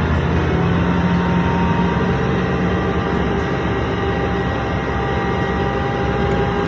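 Engine of a harvesting machine running steadily: a dense rumble with a few held hum tones.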